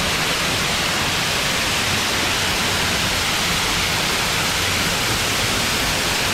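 Waterfall pouring over rock and splashing close by, a steady rushing noise.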